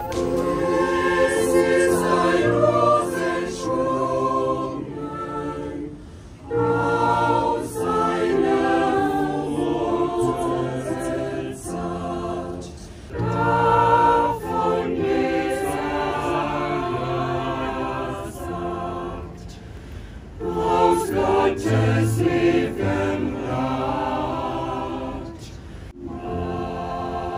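Mixed choir of men's and women's voices singing a cappella in several parts, in long held phrases with short breaths between them.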